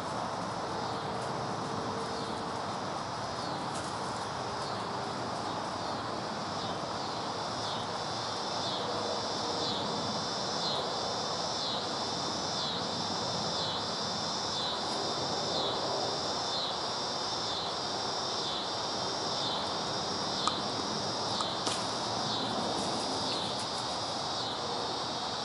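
A chorus of insects calling in the summer woods, a high rhythmic pulsing about once every three-quarters of a second that grows stronger about a third of the way in, over a steady background hiss. Two faint clicks near the end.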